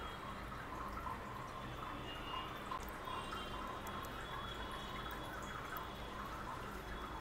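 Sugar glider licking and chewing pomegranate arils: an irregular run of small wet smacks and clicks, about two a second.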